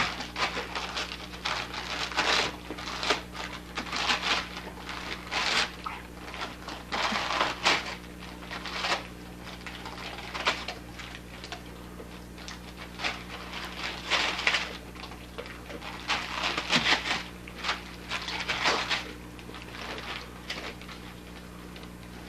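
A yellow Labrador tearing and crumpling shiny foil gift wrap with its mouth and paws: irregular bursts of crinkling and ripping that come and go throughout, a few louder rips standing out.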